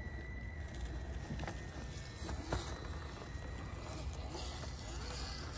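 Traxxas TRX-4M micro RC crawler climbing rocks: a faint steady electric motor and gear whine, with two sharp clicks about one and a half and two and a half seconds in, as the tyres and chassis knock on stone.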